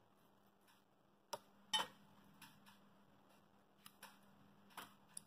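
Scattered faint clicks and taps of soya chaap pieces being handled on a ceramic plate, the sharpest a little under two seconds in, over a faint steady low hum.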